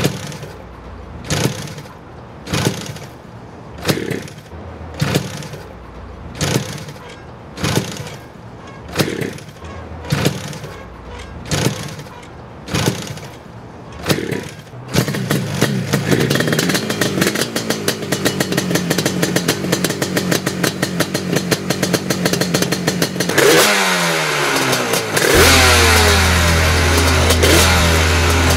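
A series of strong swells about every second and a half for the first half, then the Yamaha RD400 two-stroke twin motorcycle engine running with a fast buzzing beat. Near the end it is revved hard, its pitch sweeping up and down repeatedly.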